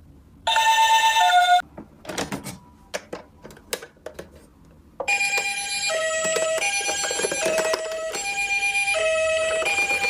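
Toy ambulance electronic siren: one short high-low "pee-po" when its roof button is pressed, followed by clicks and rattles of plastic toy vehicles being handled. About five seconds in, a larger toy ambulance's siren starts a repeating high-low two-tone pattern, switching pitch roughly every 0.7 s, like a Japanese ambulance siren.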